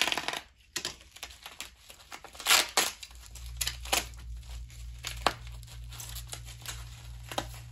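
Packaging wrap crinkling and tearing as a heavy wrapped item is unwrapped by hand: irregular rustles with sharper crackles, the loudest at the start and about two and a half seconds in.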